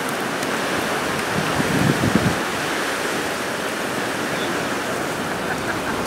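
Strong Santa Ana offshore wind rushing over the microphone, mixed with the steady wash of surf: a continuous even roar, swelling a little about two seconds in.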